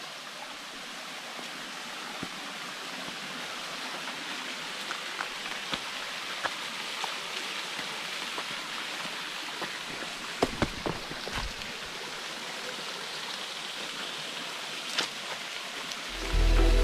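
Steady rushing of running water, with a few sharp clicks or knocks about ten to eleven seconds in. Background music comes in right at the end.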